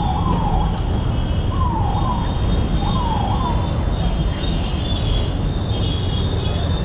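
Motorcycle riding through traffic: steady wind and road rumble with the bike's engine. A rising warbling tone sounds in short bursts three times over the first few seconds.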